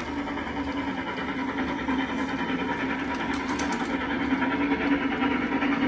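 Battery-powered toy locomotive's small electric motor whirring steadily as it pulls wagons along a wooden track, a constant hum that grows slowly louder.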